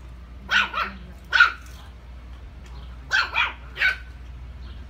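Small puppy barking: six short, sharp barks in two quick runs of three, the second run starting about three seconds in.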